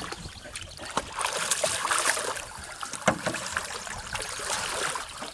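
Water splashing and trickling as a hooked channel catfish is played near the surface and brought toward the net, with a few sharp knocks.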